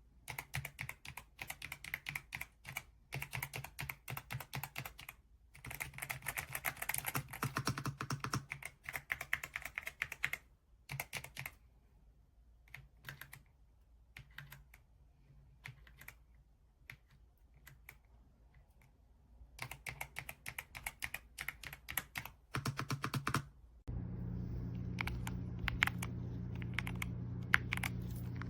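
Typing on a YUNZII B75 PRO gasket-mounted mechanical keyboard: fast runs of soft keystrokes in bursts, with a sparser pause in the middle. Near the end a steady low hum comes in under the keystrokes.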